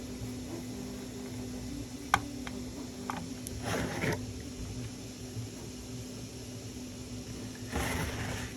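Small self-tapping socket-head screws being driven by hand into a 3D-printed plastic model cab: a sharp click about two seconds in, a few lighter ticks, and two short scraping noises near the middle and the end, over a steady low hum.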